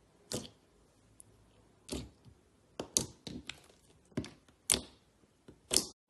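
Clear slime being pressed and played with by hand, giving an irregular series of sharp pops and clicks, roughly a dozen, with the loudest near the middle and at the end.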